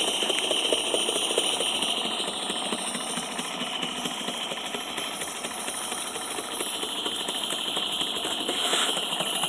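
Accucraft three-cylinder Shay model locomotive's engine running steadily on test, a rapid, even patter of exhaust beats and rod clatter over a steady hiss. Its cylinders and crank, which had seized, have just been freed by boiling them in hot vinegar.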